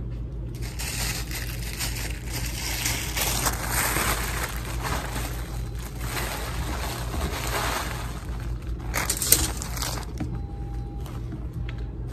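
Clear plastic garment bags crinkling and rustling as they are handled and pulled about, with a sharper crackle about nine seconds in and a steady low hum underneath.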